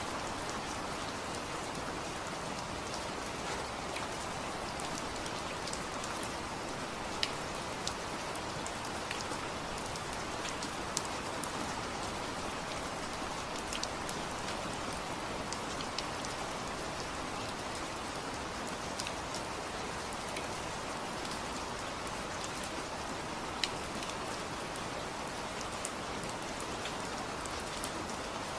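Steady rain falling, an even hiss with scattered sharper drip ticks of drops hitting a surface.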